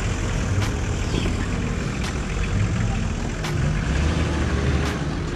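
Off-road 4x4 vehicle engine running, with a sharp tick about every second and a half.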